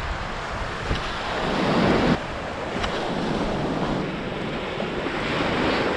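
Small surf breaking and washing up the sand, with wind buffeting the microphone. The wash swells up, cuts off abruptly about two seconds in, and then goes on steadily.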